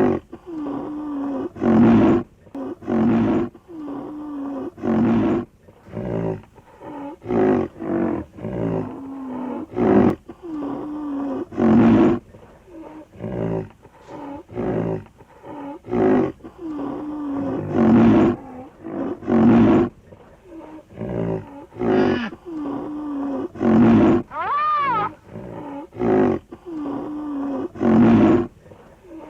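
Rhinoceros calls: a long series of low, loud grunting calls with breathy bursts, one every second or two, and a single high squeal that rises and falls about 25 seconds in.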